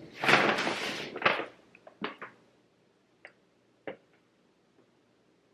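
A second of rustling handling noise, followed by a few scattered light knocks and clicks as things are moved about.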